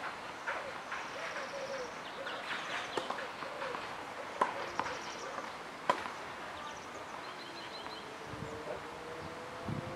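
Outdoor ambience with birds chirping, a few faint ticks, and two sharp knocks about a second and a half apart in the middle. A steady low hum comes in near the end.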